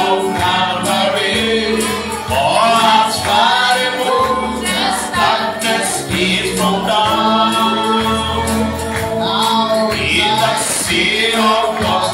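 Gospel worship song: voices singing a wavering melody over a steady, sustained instrumental backing, continuous and loud.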